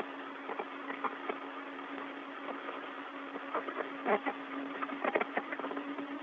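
Open space-to-ground radio channel between transmissions: a steady low hum under hiss, with scattered clicks and crackles, a few louder ones about four and five seconds in.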